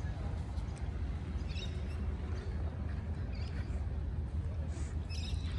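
Wind buffeting the microphone, a steady low rumble, with a few faint short high chirps scattered through it.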